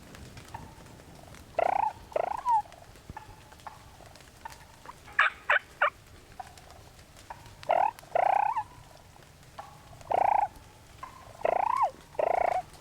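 Wild turkey calling: short pitched calls, mostly in pairs a few seconds apart, with three quick sharp notes about five seconds in.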